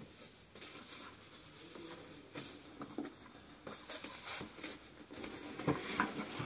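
Paper and cardboard packaging rustling and scraping as a gift box is handled and opened, in short irregular strokes.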